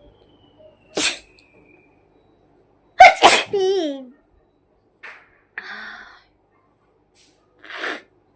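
A woman with a cold sneezing: one sharp sneeze about a second in, then a louder one about three seconds in that ends in a falling voiced tail, followed by several shorter, softer sounds.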